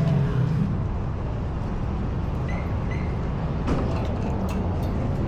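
Steady low engine rumble from a running vehicle, with a few faint clicks and two brief high chirps about halfway through.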